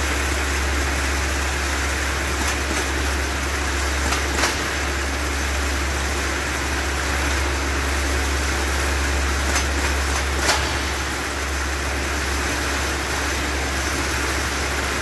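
Conveyor-type fruit weight sorting machine running, a steady mechanical noise over a strong low hum, with a few sharp clicks.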